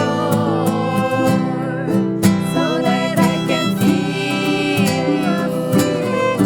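Live acoustic jam: guitar playing chords and picked notes under a melody line that holds and slides between notes.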